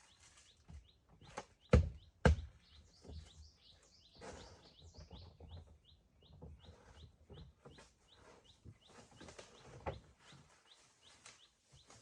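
A bird chirping, a short high note repeated evenly about three times a second, with two loud sharp knocks about two seconds in and scattered fainter clicks and taps.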